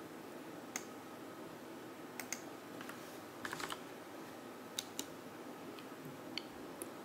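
Keystrokes on a computer keyboard, typing a web address: scattered single key clicks with a quick run of several about three and a half seconds in, over a steady faint hiss.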